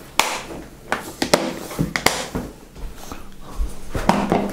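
Plastic clip-lock food containers being handled on a steel worktop: several sharp plastic clicks and knocks as the lid is clipped shut and an empty plastic box is set down.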